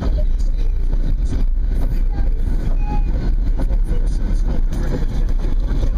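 Steady road and engine noise inside a moving car, a constant low rumble, with a faint voice under it.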